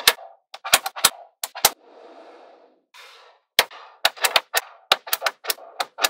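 Small neodymium magnetic balls clicking sharply as they snap together, in quick clusters of clicks. A softer shuffling rattle of the balls comes between them about two seconds in, and the clicks come thick and fast in the second half.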